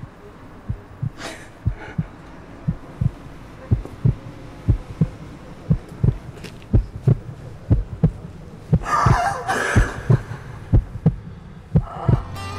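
A dramatic heartbeat sound effect on the soundtrack: low, regular thuds, a few a second. A woman sobs briefly about nine seconds in.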